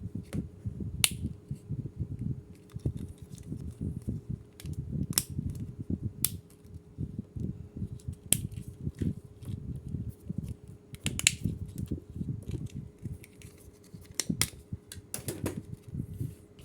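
Plastic toy army men and base-camp pieces being handled and unpacked: irregular sharp clicks and taps over low rustling and knocking, with a faint steady hum underneath.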